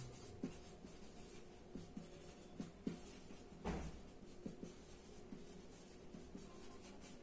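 Marker pen writing on a whiteboard: faint strokes and small ticks as letters are written, with one louder tap a little over halfway through.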